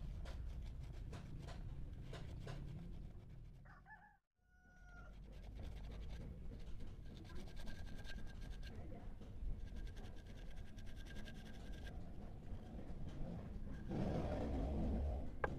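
Wet scrubbing of a brass candle holder on a soapy wooden board: a run of light rubbing and scratching strokes. A rooster crows faintly in the background, and the sound cuts out briefly about four seconds in. Near the end there is a louder rush of noise and one sharp click.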